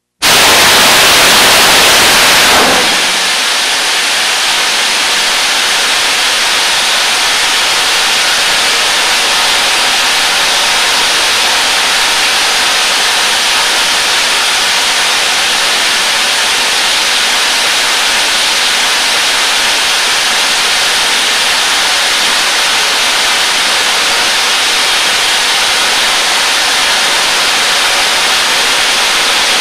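JAGM boost-sustain rocket motor static test firing in a vertical test stand. It starts abruptly with a louder boost phase of about two and a half seconds, then settles into the steady, slightly quieter hiss of the sustain burn.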